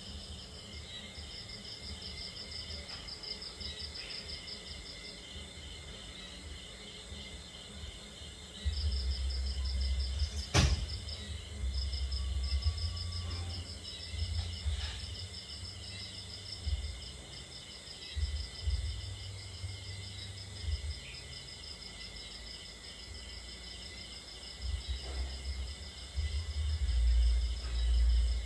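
Insects chirping in a steady, evenly pulsing high chorus. From about nine seconds in, intermittent low rumbles come and go, with one sharp click about ten seconds in.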